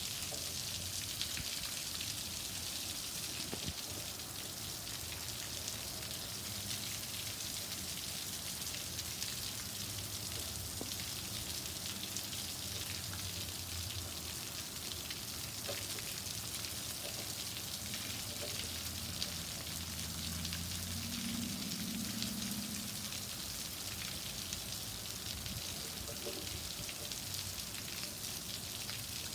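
Rain falling steadily: an even hiss flecked with many small drop ticks.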